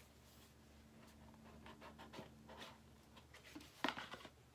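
Quiet rustling, scratching and light clicks of a small purse being handled, with a sharper click and rustle just before the end.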